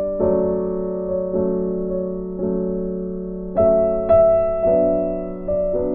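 Background music: a gentle piano piece, with notes or chords struck about once a second and left to ring and fade.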